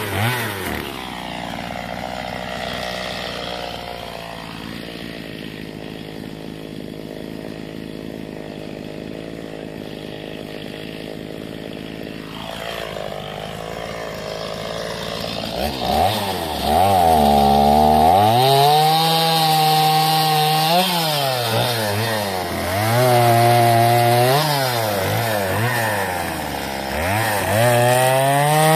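Two-stroke chainsaw idling for about the first half, then run at full throttle and cutting into a log, its high engine note sagging and recovering several times as the chain bites into the wood.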